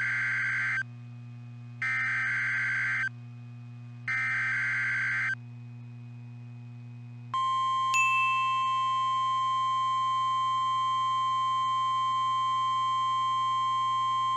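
NOAA Weather Radio emergency alert signals: three SAME digital header data bursts of about a second each, a second apart, then the steady 1050 Hz warning alarm tone starting about seven seconds in. This marks the start of the required weekly test.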